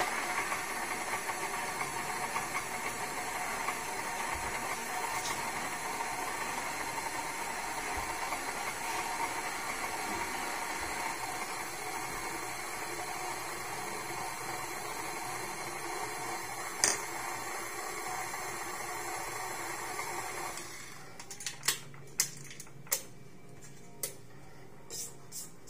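Tilt-head stand mixer (KitchenAid Classic) running steadily with its flat beater, stirring flour, milk and sour cream into a bread dough. The motor stops about 21 seconds in, followed by a few sharp clicks and knocks.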